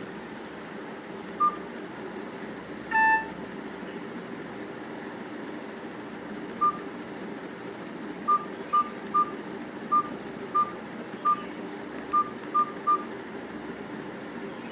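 Nokia 105 mobile phone beeping: one short keypad beep, then about three seconds in the slightly longer 'Beep once' alert tone. About ten more identical short keypad beeps follow at uneven spacing, mostly in the second half, over a steady low room hum.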